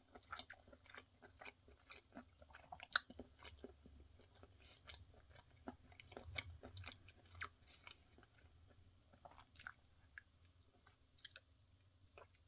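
A person chewing and biting food: faint, irregular wet clicks and soft crunches, with one sharper click about three seconds in.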